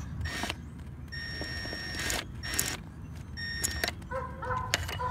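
Scattered light metallic clicks and scrapes of a Torx driver and small parts working in a metal fuel bowl, with a few brief squeaks, over a low steady hum.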